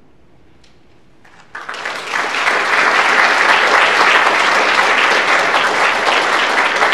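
Audience applauding. After a hushed moment with a couple of lone claps, full applause breaks out about a second and a half in and holds steady.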